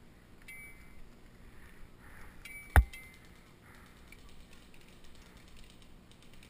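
Faint mechanical clicks and rattles of airsoft guns being handled, with one sharp, loud knock about three seconds in.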